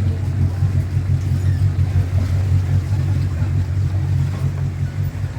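Boat engine running steadily, a loud low drone that wavers slightly in level.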